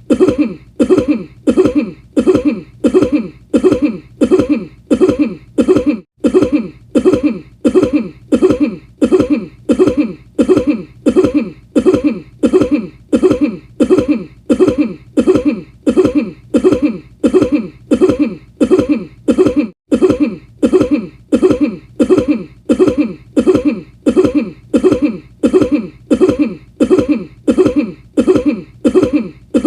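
A single cough sample looped over and over, the identical cough repeating about twice a second.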